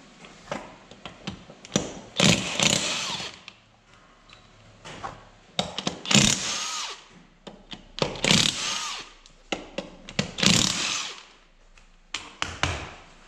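Cordless DeWalt impact wrench hammering ATV wheel lug nuts loose, in four bursts of about a second each. Short clicks and knocks of the socket and nuts come between the bursts.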